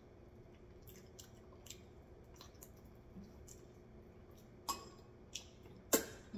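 Close mouth sounds of someone eating oat fufu with okra soup by hand: faint wet clicks and chewing, with two louder sharp clicks in the last two seconds.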